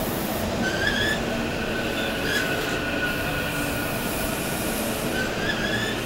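SEPTA Silverliner V electric train rolling over a crossover at speed, a steady rumble with short, high wheel squeals that come and go as its flanges grind through the switches and curves.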